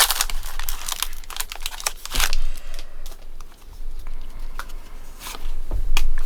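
Foil wrapper of a Pokémon trading-card booster pack being crinkled and torn open by hand, in irregular crackly rustles, louder about two seconds in and again near the end.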